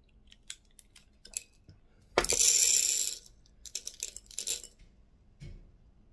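Lead shot pellets from a shotgun cartridge pouring into a rubber dish in one dense rattle lasting about a second, after a few light clicks as the cartridge is worked open. The pellets then rattle and click more lightly as they are stirred and spread with a tool.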